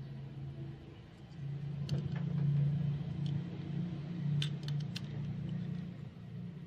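Small metal utensils clinking against a miniature steel pan, once about two seconds in and a quick few more about four and a half seconds in, over a steady low hum.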